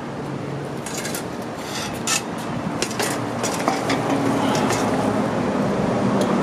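Rustling, scraping and short crackles of a floral arrangement and its thin wire easel stand being handled and set back upright on brick paving.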